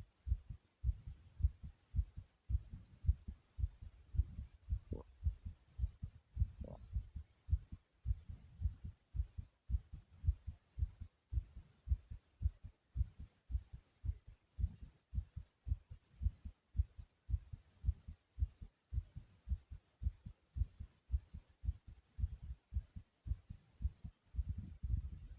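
Human heart beating rapidly after exercise: a fast, even rhythm of low, short thumps.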